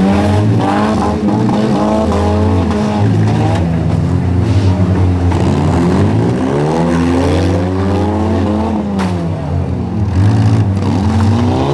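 Several four-cylinder compact cars' engines revving up and down together in a demolition derby. A sharp crash of cars colliding comes about nine seconds in.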